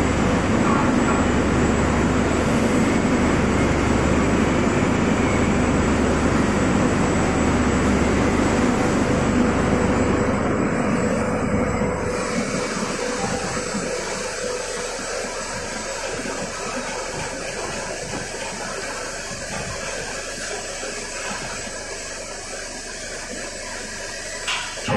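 Hanger-type shot blasting machine running: a steady mechanical rush with a low hum underneath. About halfway through the hum stops and the noise drops to a quieter steady hiss.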